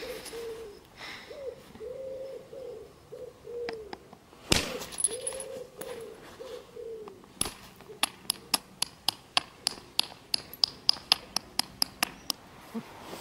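A dove cooing in repeated wavering phrases, with a knock or two. From about eight seconds in, a quick run of sharp light clicks, a few a second, from the flint being worked.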